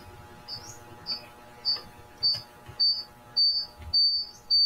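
High-pitched electronic beeping, a bit under two beeps a second, each beep longer and louder than the last until they nearly run together near the end: audio feedback building up in the online call, which a participant soon calls echoing and painful to the ears.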